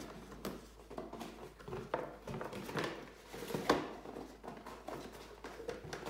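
A cardboard shoebox and its bent coat-hanger wire being handled and adjusted: scattered light knocks, clicks and rustles of wire against card, the sharpest knock a little under four seconds in.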